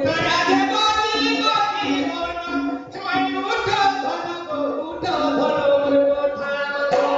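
A man singing into a microphone in long, held, wavering phrases. Under the voice a barrel drum is struck steadily, about two strokes a second.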